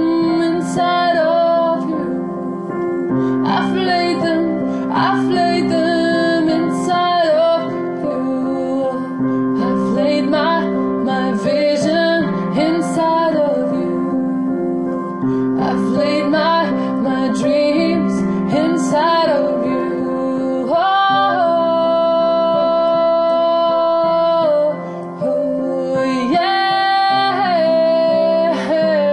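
A woman singing a slow, improvised melody over sustained piano chords, with a long held note about three-quarters of the way through.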